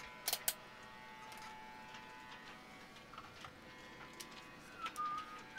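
Two sharp clicks early on, then a few light ticks, as a handheld multimeter and its test probes are handled at the boat's batteries. A faint steady hum runs underneath, and a brief high tone sounds about five seconds in.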